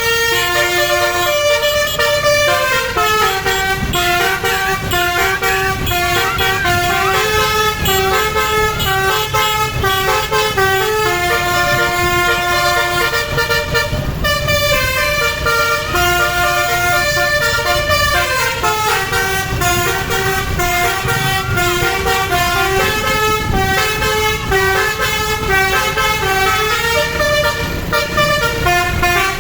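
Basuri multi-tone 'telolet' bus horn playing a stepped melody of held notes without a break, the tune looping round, over a low rumble.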